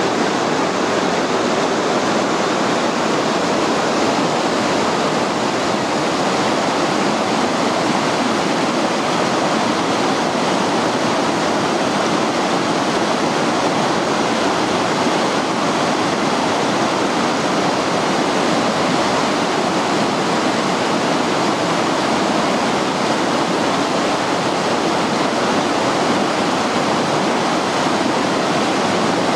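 Swollen, muddy river running fast over boulders and through rapids: a steady, loud rush of water.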